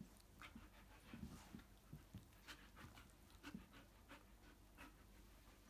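An Alaskan malamute panting faintly in short, irregular huffs while it play-fights on its back.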